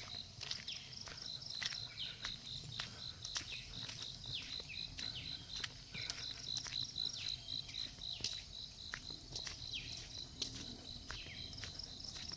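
Insects chirping in a very regular pulse, about four chirps a second, over a steady high-pitched insect drone. Short falling chirps and the scattered steps of someone walking on a wet road are mixed in.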